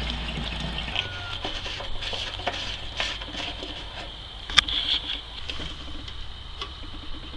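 Fuel pouring through a flexible spout into a small engine's fuel tank, trailing off about a second in, then small metallic clicks and taps as the filler cap is screwed back on, with one sharp click about halfway. A faint steady high-pitched hiss runs underneath.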